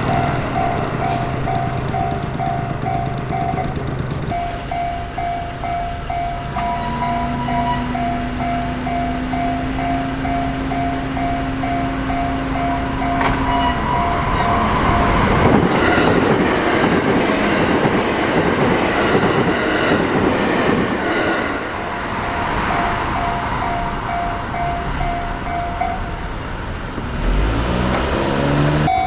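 Japanese level-crossing warning bell ringing in a steady, rapid ding-ding pattern, about two strokes a second. From about 14 to 22 s in, an electric commuter train passes through the crossing, its wheels rumbling loudly over the rails and masking the bell, which then rings on. A rising whine comes near the end.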